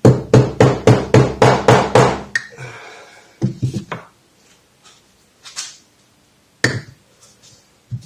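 New oil seal being tapped down into a Showa motorcycle fork leg with a seal driver: a quick run of about a dozen knocks, roughly five a second, for the first two seconds or so, then a few single knocks spaced out.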